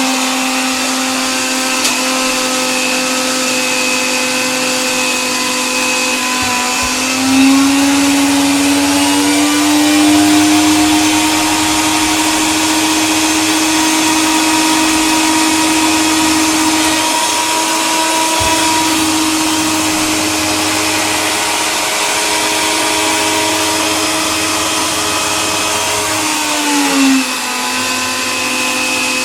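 Electric coffee grinder running continuously: a steady motor whine over a gritty grinding noise. The motor pitch steps up a little about a quarter of the way in, holds, and drops back near the end.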